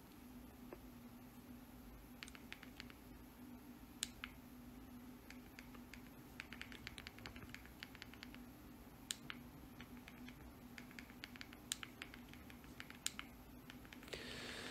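Near silence with faint scattered clicks and taps, some in quick runs of several clicks, over a low steady hum.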